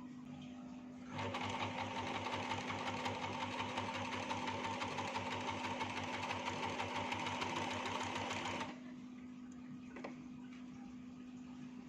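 Janome electric sewing machine stitching a pattern stitch at a steady, even pace, starting about a second in and stopping abruptly near the end after about seven and a half seconds.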